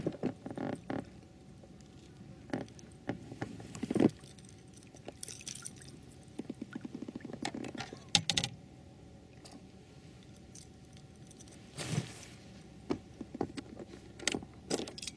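Handling sounds of a small pike hooked on a lure: scattered clicks, rattles and rustles, with a few louder knocks about four, eight and twelve seconds in.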